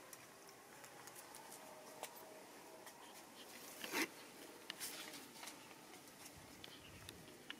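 Faint rustling and scattered light clicks as a baby monkey climbs among tree branches and leaves, with one sharper knock about four seconds in.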